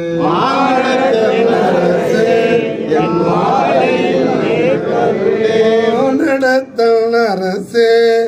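A group of men singing a Tamil devotional hymn together in a slow chant, read from a hymn book. Their voices break off briefly twice near the end between lines.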